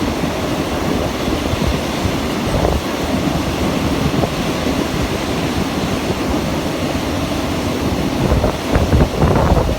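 Wind buffeting the microphone over a steady low rumble, with stronger gusts near the end.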